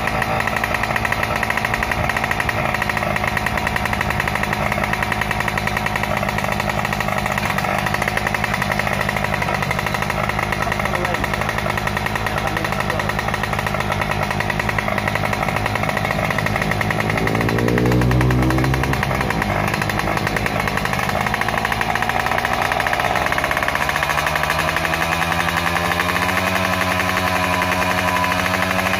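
Yamaha F1ZR 116cc two-stroke engine running on its stand with a rattly, chattering beat. The revs rise and fall once a little past the middle, then climb slowly near the end as the throttle is opened.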